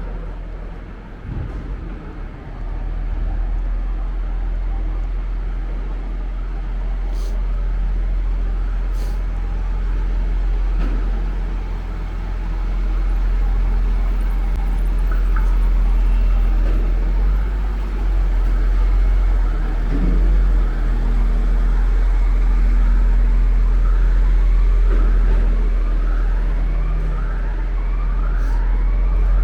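City street traffic: a steady low vehicle rumble, with an emergency vehicle's siren joining about halfway in, a rising sweep repeated about once a second that grows clearer near the end.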